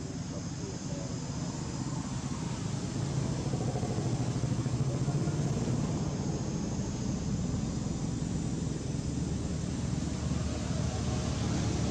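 A motor vehicle's engine running steadily, a low rumble that grows louder about three seconds in and then holds.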